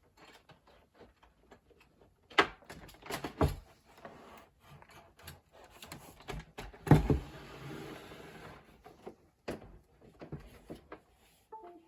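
Hands fiddling with and adjusting things on a desk: scattered clicks and knocks, the loudest about two and a half, three and a half and seven seconds in, with a second or so of rustling after the one at seven seconds.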